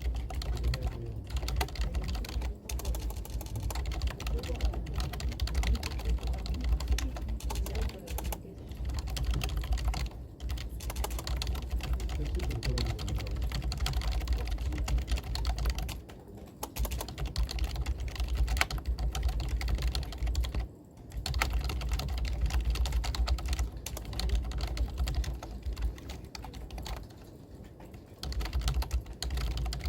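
Rapid typing on a computer keyboard: a dense, continuous run of keystrokes, broken by short pauses about halfway through and again near the end.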